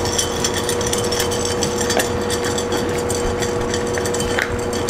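A corgi eating from its bowl: many quick crunches and clicks of food against the bowl, over a steady hum.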